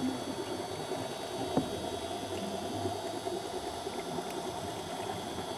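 Steady underwater ambient noise, a low hum and hiss, with a single sharp click about a second and a half in.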